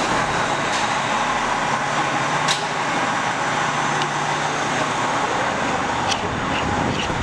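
Fire engine's diesel engine running steadily, with a couple of brief clicks.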